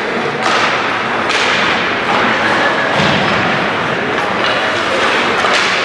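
A few sharp thuds, about four, over a steady noisy background in a large hall.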